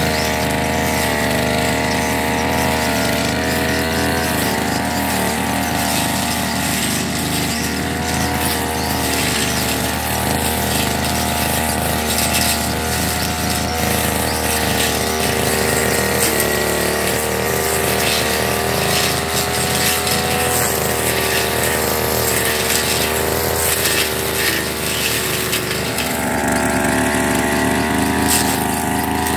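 Backpack petrol brush cutter running continuously while cutting grass and weeds, its engine pitch dipping and rising as the load changes.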